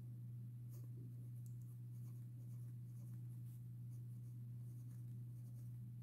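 Ballpoint pen writing on squared paper: faint, scattered scratching strokes over a steady low hum.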